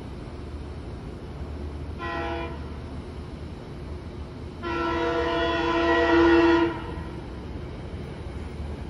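SEPTA electric commuter train's horn sounding as the train approaches: a short blast about two seconds in, then a longer blast of about two seconds near the middle that grows louder before cutting off.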